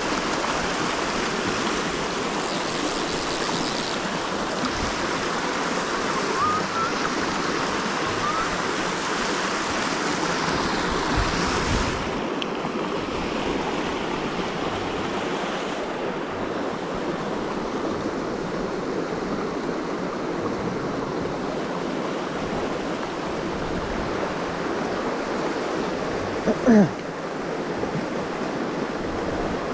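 Mountain creek water rushing steadily, its brighter hiss dropping away about twelve seconds in. A brief, loud sound cuts in near the end.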